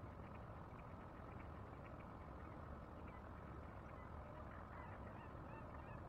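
Faint outdoor ambience: a low steady rumble with scattered faint chirps and short bird calls.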